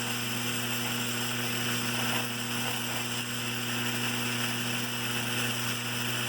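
Lionel 3656 cattle corral's vibrator mechanism buzzing steadily on AC power, shaking the plastic cattle figures around the corral platform. It is an even electrical hum with a faint rattling hiss, not changing in pitch.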